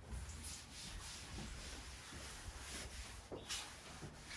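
Faint rubbing and scuffing over a low steady hum.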